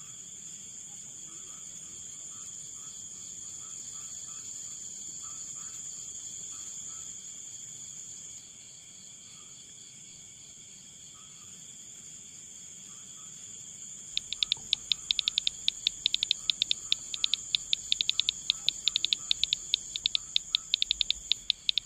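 Insects trilling: a steady, high-pitched trill throughout, joined about fourteen seconds in by a louder, rapid pulsed chirping.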